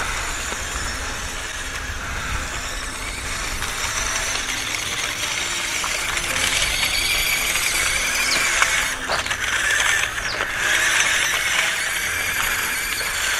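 Small RC truck's electric motor and plastic gearbox whining steadily as it drives along a gravel path, the pitch drifting up and down with speed. The sound dips briefly twice, about nine and ten seconds in.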